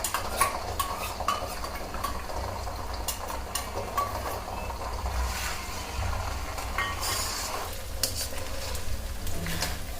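Ginger-garlic paste and browned onions sizzling in oil and ghee in a pan while a spoon stirs and scrapes, with frequent sharp clicks of the spoon against the pan.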